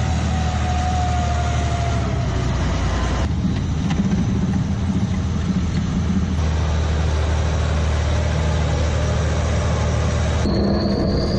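Tor air-defence system's two-section articulated tracked carrier driving past, its engine running with a steady low drone. The sound shifts abruptly about three seconds in and again near the end, where a high steady whine comes in.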